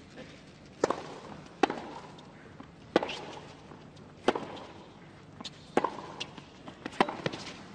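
Tennis ball struck by rackets in a serve and a baseline rally on a hard court: six sharp strikes roughly every second and a half, with fainter knocks between from the ball bouncing and the players' feet.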